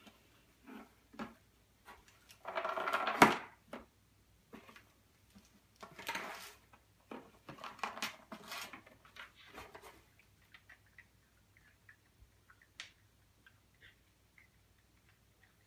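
A small cardboard box being pawed, nosed and pushed across a wooden floor by cats after treats: irregular spells of scraping and rustling, with a sharp knock about three seconds in. After about ten seconds only faint scattered clicks remain.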